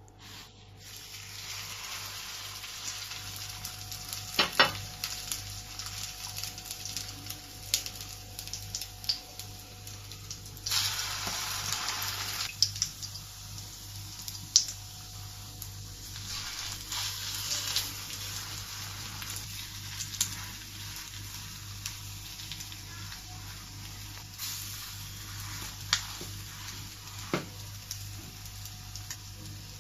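Egg-dipped bread slices frying in hot butter on a flat tawa griddle, sizzling steadily with scattered sharp clicks. The sizzle grows louder for a couple of seconds about eleven seconds in.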